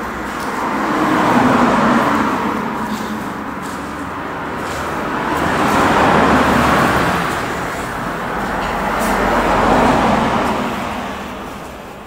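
Passing road traffic: a hiss of tyres and engines that swells and fades three times as vehicles go by, dying away near the end.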